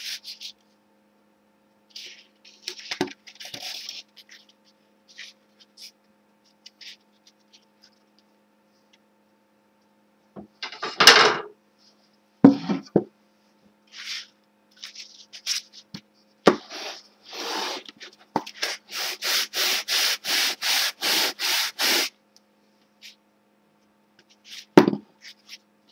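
Homemade sanding block rubbed over a wooden strip. Scattered scrapes and a couple of knocks come first, with one loud scrape partway through. Near the end come about a dozen quick, even back-and-forth sanding strokes, three or four a second.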